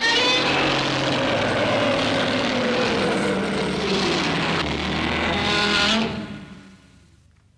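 Sound effect from the 1984 Godzilla film: a loud, harsh, roar-like cry that starts abruptly, slides down in pitch through the middle, and fades out about six seconds in.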